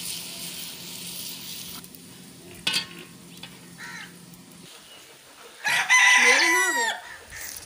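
Food sizzling as it fries in an aluminium pot, the hiss stopping about two seconds in, followed by a single sharp knock. Near the end a rooster crows loudly, one call a little over a second long.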